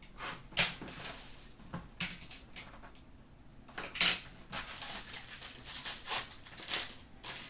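Trading-card packaging being handled: a run of crinkles, rustles and scrapes from foil packs and cardboard boxes, with sharper crackles about half a second in and about four seconds in.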